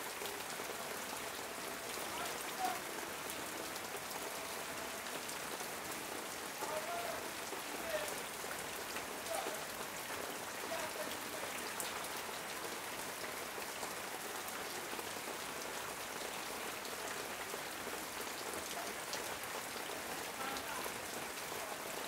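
Steady rain falling on corrugated metal roofing: a dense, even hiss with many scattered sharper drop ticks.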